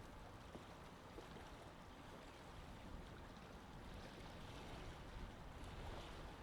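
Faint, steady ambience of sea water and wind with a low rumble underneath.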